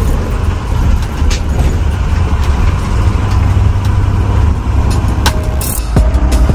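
School-bus motorhome driving: a steady low engine and road rumble with occasional short knocks. Music comes in near the end.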